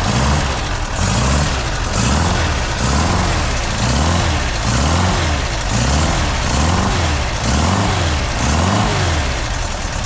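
Rebuilt 2-litre VW Type 4 air-cooled flat-four, running on a test stand through a stainless merge exhaust, being revved up and down by hand at the carburettor linkage: engine speed rises and falls in even sweeps about once a second, some ten times. It is the engine's first run after its refresh.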